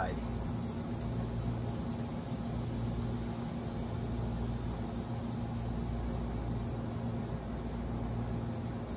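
A cricket chirping steadily at about three high chirps a second, pausing briefly around the middle, over a low steady hum.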